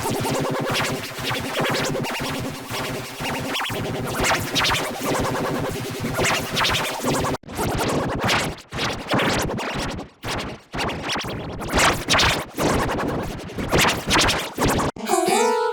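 Heavily effect-processed electronic audio: a dense, harsh noisy wash for about seven seconds, then after a sudden break a run of choppy, stuttering bursts with a scratching, glitchy character.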